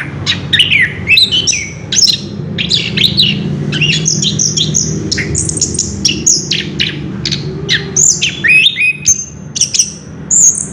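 Orange-headed thrush singing a long, unbroken run of rapid, varied notes, several a second, the continuous rolling song that keepers call ngerol.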